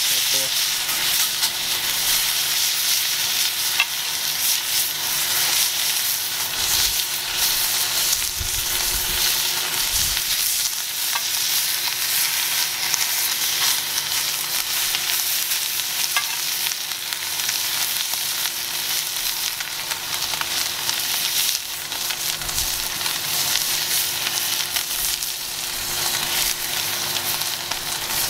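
Wagyu steak searing on its second side in a smoking-hot Lodge cast iron skillet greased with its own rendered fat: a loud, steady sizzle with a few crackles.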